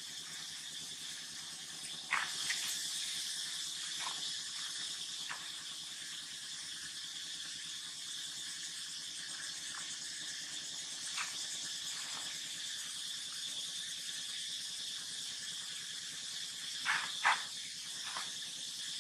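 Steady outdoor insect chorus, a continuous high buzzing hiss, broken by a few brief sharp squeaks, the loudest two close together near the end.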